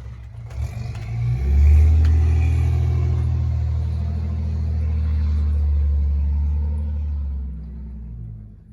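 Snowplow truck's engine working under load as it pushes snow, revving up about a second in, holding steady, then easing off and fading near the end.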